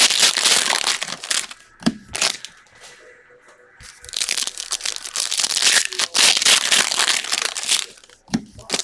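Trading-card pack wrappers crinkling as they are pulled open and handled by hand, in two bouts: one lasting a couple of seconds at the start, and a longer one from about four seconds in.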